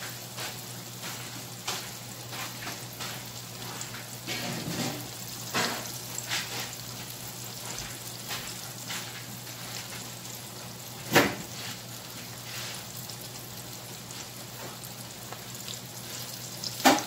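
A breaded fish fillet shallow-frying in oil in a skillet: the oil sizzles steadily with frequent small crackles. A sharp, louder click sounds about eleven seconds in and again near the end.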